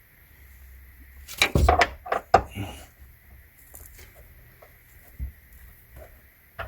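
Metal clinks and knocks of a triple-square bit socket being fitted and seated into a seat-belt bolt head, a quick cluster of sharp hits with the loudest one in the middle, then a few lighter taps.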